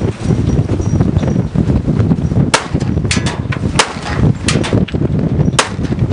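Rifle shots at a shooting match: three sharp, loud cracks spaced one to two seconds apart starting about two and a half seconds in, with fainter shots between them. Heavy wind rumble on the microphone runs underneath.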